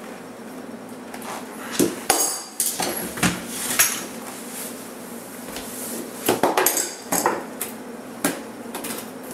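Sharp metallic clicks and clinks with a brief ring, a hand tool working on the small metal hardware of a magnet catch: one cluster about two to four seconds in and another about six to eight seconds in.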